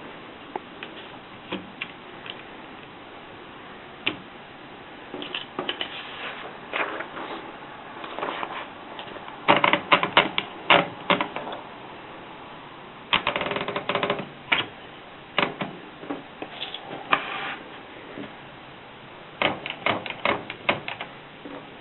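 Antique Adler typewriter being typed on: sharp, irregular keystroke clacks, a few scattered at first, then quick runs of strikes in several bursts, the loudest a little under halfway through.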